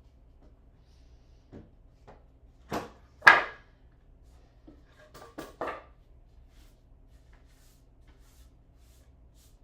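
A handful of sharp knocks and thumps: two close together about three seconds in, the second the loudest, then a quick run of three a couple of seconds later.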